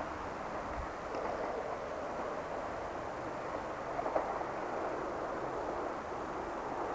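Class 165 Turbo diesel multiple unit running away into the distance, a steady even noise of engine and wheels. There is a brief click about four seconds in.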